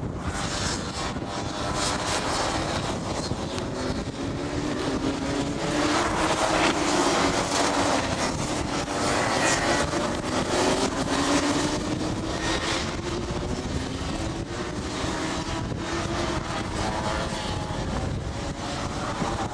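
A pack of Rotax 125cc two-stroke racing karts passing, several engines whining together and rising and falling in pitch as they brake and accelerate through the corner. They are loudest about halfway through, as the pack goes by closest.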